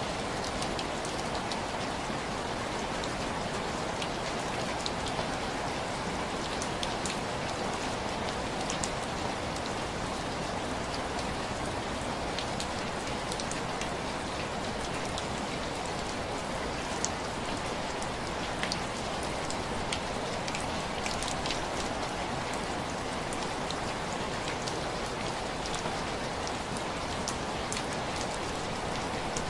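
Heavy rain falling steadily, an even hiss with scattered sharp little ticks and pops through it.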